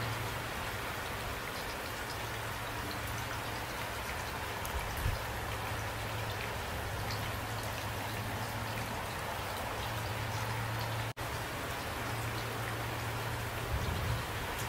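Steady rain falling, with scattered individual drops hitting close by. The sound cuts out for an instant about eleven seconds in.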